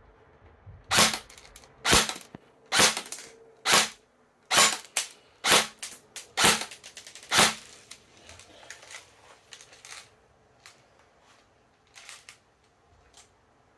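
Double Bell 813S (HK416-style) airsoft electric gun firing single shots through a chronograph: eight sharp shots about a second apart, followed by a few much fainter clicks.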